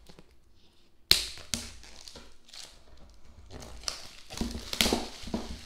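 Clear plastic shrink-wrap on a cardboard headphone box being picked at and torn open by hand. There is a sharp click about a second in, then scattered scratching and crinkling that gets busier near the end.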